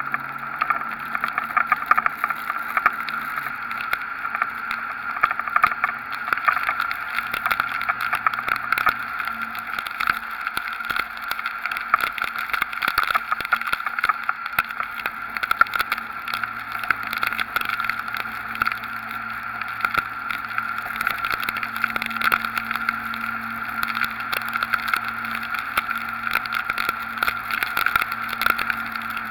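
Storm wind and rain hitting a camera mounted on the outside of a moving Dodge Ram pickup: a steady rushing noise with a constant crackle of drops and gusts, over a faint steady low hum from the truck.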